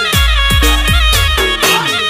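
Instrumental passage of a Gujarati timli remix: deep electronic kick drum hits that drop in pitch, about three a second, under a high lead melody.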